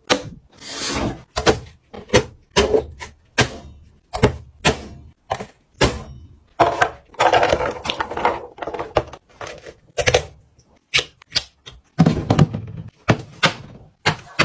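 Food containers and bottles being set down and slid into place while restocking a fridge: a quick run of knocks and taps, with short stretches of rubbing and rustling between them.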